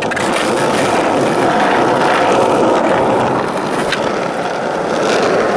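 Skateboard wheels rolling over rough asphalt, a steady loud rolling noise, with one sharp click about four seconds in.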